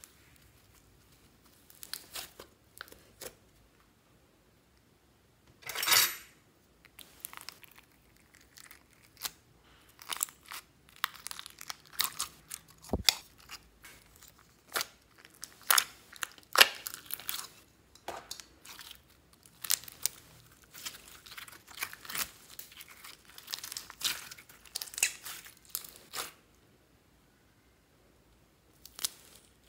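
Slime being stretched, pulled apart and squished by hand, giving irregular crackling, popping clicks and short tearing sounds, with a louder crackle about six seconds in. Quiet for a few seconds near the end.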